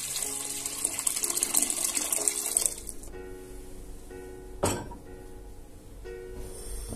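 Water running from a kitchen tap into a sink, stopping abruptly about three seconds in; a single sharp knock follows about a second and a half later.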